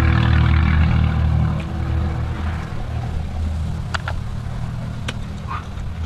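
A steady low rumble under sustained music tones that stop about two seconds in, then a few sharp clicks around the middle as snail shells knock together while they are picked from the heaped pile.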